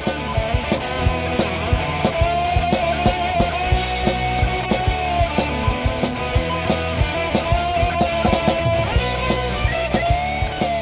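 Rock instrumental with a drum kit keeping a steady beat under guitar.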